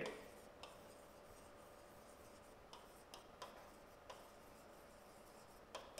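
Faint, scattered taps and scratches of a stylus writing on an interactive smartboard's screen, over a faint steady hum.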